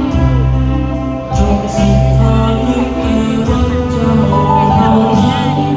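A military band plays a slow Thai patriotic song in long held notes, with singing over it.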